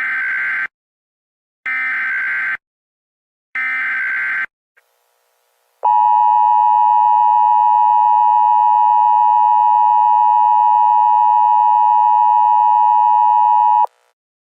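Emergency Alert System (EAS) tones opening an Amber Alert. Three short buzzing bursts of SAME digital header data, each about a second long and a second apart, are followed by the steady two-tone EAS attention signal, held for about eight seconds and cutting off sharply.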